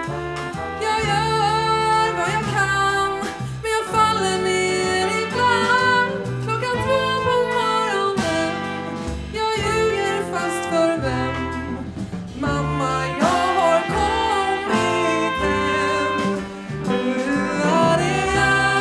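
Live jazz-pop band playing: piano, double bass, drums, trumpet and trombone, with a woman singing.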